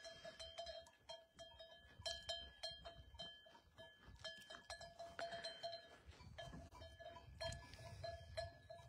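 A livestock bell clanking faintly and irregularly, several strokes a second, each ringing on the same metallic note, as worn by grazing animals moving about.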